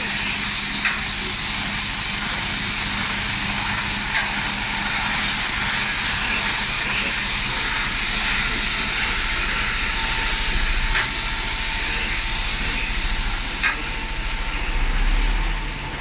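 Water jets of a DTW-241 drive-through wheel-washing machine spraying steadily onto a truck's tyres and underbody, a constant loud hiss, over the low rumble of the truck's engine. A few sharp clicks stand out, and the engine rumble grows louder near the end.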